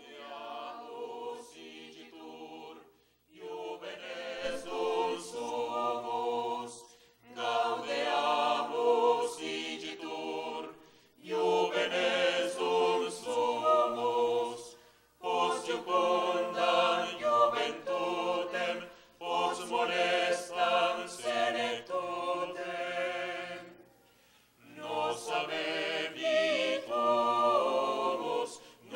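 Small mixed choir of men's and women's voices singing unaccompanied, in phrases of a few seconds separated by short pauses.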